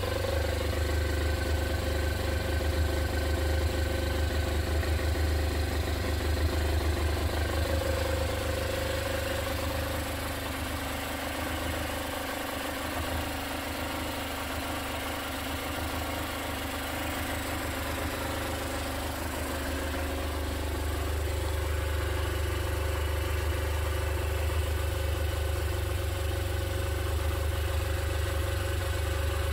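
Honda NS250F's two-stroke V-twin engine idling steadily, its exhaust note low and even.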